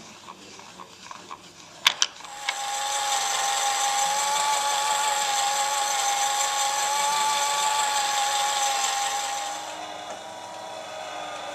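Small electric motor and gearing of a wooden automaton in a display case running with a steady whine, starting just after two sharp clicks. About ten seconds in it drops to a quieter hum.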